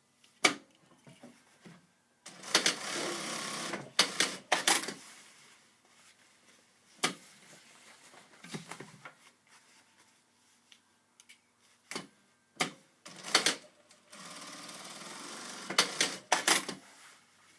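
Brother S-7000DD-403 servo-motor sewing machine stitching two short seams, each burst lasting about a second and a half to two seconds, one about two seconds in and one near the end. Sharp clicks come around each seam, and the machine is otherwise silent between seams, as its servo motor only runs while sewing.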